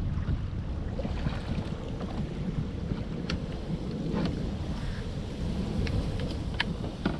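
Wind buffeting the microphone in a low rumble, with a few scattered light clicks and taps from hands handling a caught red drum and its lure on a plastic kayak.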